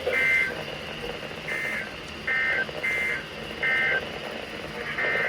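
Emergency Alert System SAME digital data bursts: six short, shrill two-pitch chirps of about a third of a second each, the length of the end-of-message bursts that close a broadcast weather warning.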